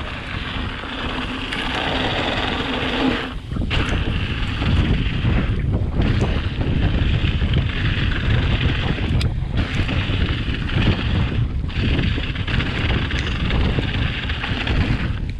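Wind buffeting the microphone of a handlebar-mounted camera on a mountain bike descending a dirt trail at speed, with the rumble of the bike rolling over the ground; the rush dips briefly several times.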